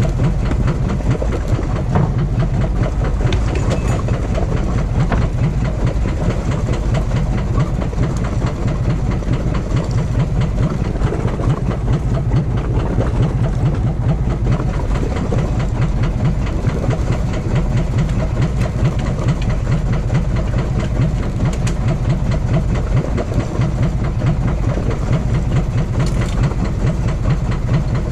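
Boat engine running steadily at a constant speed, a loud low drone with a fast even rhythm.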